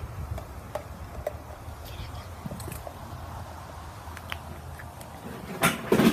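Faint small wet clicks and ticks as glue is squeezed from a plastic bottle into a plastic bowl, over a low steady rumble of traffic. A sudden louder burst of noise comes near the end.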